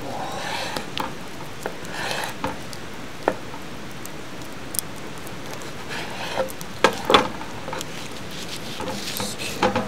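A knife slicing through grilled food on a wooden cutting board: soft cutting and scraping with scattered small clicks and a couple of sharper knocks of the blade on the board about seven seconds in. Under it runs a steady hiss with faint crackles.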